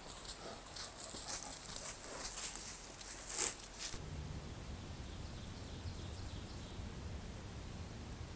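Black bear right at a trail camera: a run of clicks, scrapes and rustles from its close contact with the camera, the loudest about three and a half seconds in. At about four seconds this gives way to a steady low background rumble.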